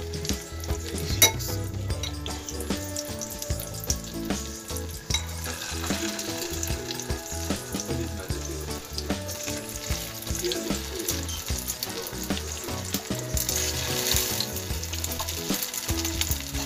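Egg-dipped slices of tikoy (sticky rice cake) sizzling as they fry in hot oil in a pan. The sizzle grows louder about 13 seconds in, and there is a sharp click about a second in.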